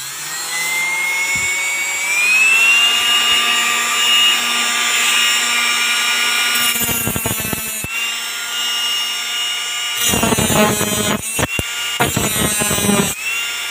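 RS775 DC motor with a small metal-cutting disc spinning up, its whine rising over the first two seconds or so and then holding steady. From about seven seconds in, and again from about ten seconds, the disc grinds the steel tip of a screwdriver in short bursts of grinding noise.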